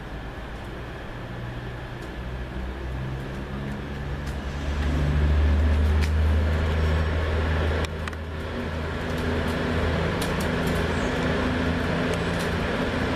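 CrossCountry Voyager diesel multiple unit drawing into the platform, its underfloor diesel engines droning and growing louder as it approaches, loudest about halfway through, with a few sharp clicks.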